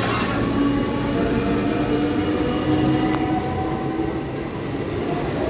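Electric multiple-unit suburban local train moving along the platform as it pulls out: a steady rumble of wheels on the rails with a steady electric hum.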